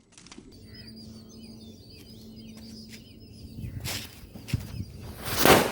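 Small birds chirping faintly in the background, with a faint steady hum in the first half. Near the end a rushing noise swells and fades, the loudest sound here.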